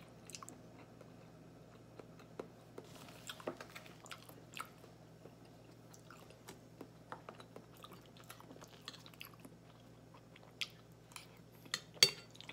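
Quiet eating sounds: chewing, scattered soft clicks and a brief rustle as a clear plastic takeout-container lid is handled, then a couple of sharp clinks of a spoon against a plate near the end.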